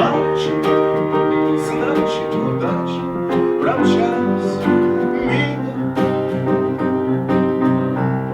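Instrumental music: held melodic notes over a steady accompaniment.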